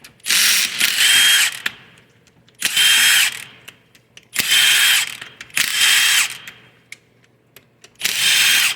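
Power driver spinning out the valve body bolts of a 4L60E transmission in about six short bursts, its motor whine rising at the start of each burst and falling as it stops, with small clicks of bolts and socket in the gaps.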